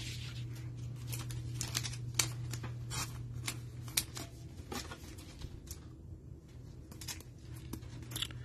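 Plastic toploaders and trading cards handled with nitrile-gloved hands: scattered light clicks, scrapes and crinkles as cards are picked up and fitted into sleeves and toploaders, over a steady low hum.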